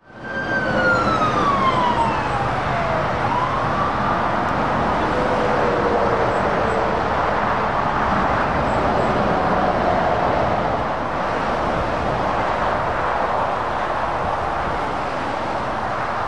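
Steady road traffic noise from lorries and cars passing on a dual carriageway, with an emergency-vehicle siren wailing over it in the first few seconds, its pitch falling over about three seconds and then rising again.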